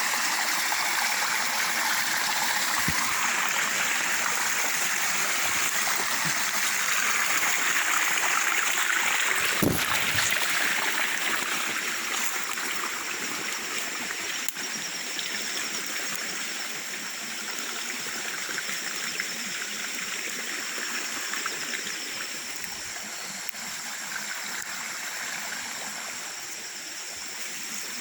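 Steady rushing of a stream's running water, with a steady high-pitched whine above it and a single sharp click about ten seconds in. The water grows a little fainter in the second half.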